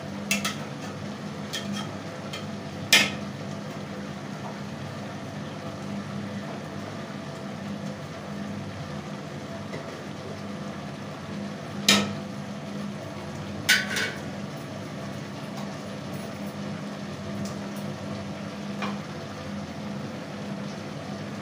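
Metal spoon stirring fish curry in an aluminium pot, knocking sharply against the pot a few times, over a steady low background hum.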